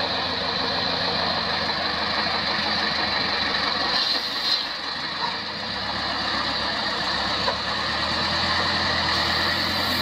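IFA truck's diesel engine running steadily as it wades through a flooded river, with a constant rush of water around it.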